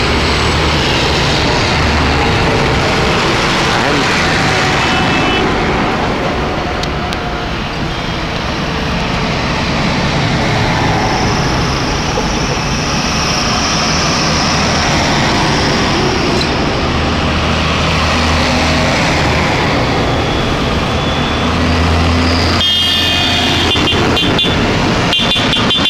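Diesel engines of a line of large modern farm tractors driving past one after another, with the hum of their big tyres on tarmac. The sound stays loud throughout, easing slightly in a gap between tractors.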